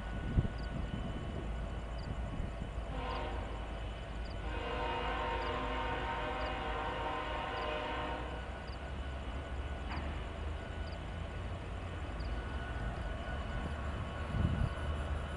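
Union Pacific GE ES44AC locomotive's air horn, with several tones at once, giving a short blast about three seconds in, then a long blast of about four seconds, over the steady low rumble of the approaching train.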